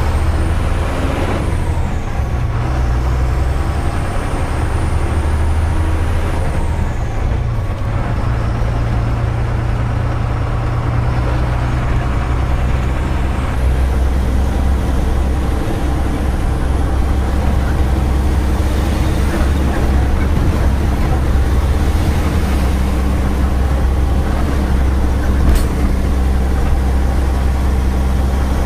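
Diesel engine of a Tata 3118 twelve-wheeler truck running under way, heard from inside the cab, with a steady low drone. A faint high whine rises and falls in the first few seconds, and there is one sharp click near the end.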